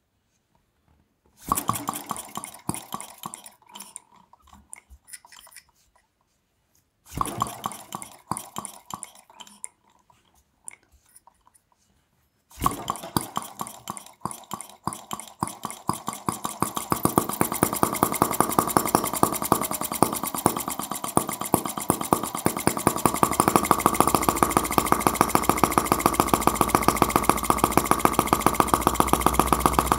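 Miniature model of Carl Benz's 1885 single-cylinder engine being started by spinning its horizontal flywheel by hand. Twice it fires a short run of quick beats that dies away. About twelve seconds in it catches and settles into steady running, with fast, even firing beats.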